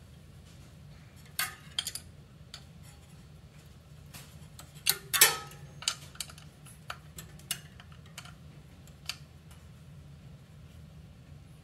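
Small metal clicks and clinks as the motorized bicycle's rear sprocket and its mounting hardware are handled and fitted at the wheel hub, irregular, with the loudest clatter about five seconds in. A faint steady low hum lies underneath.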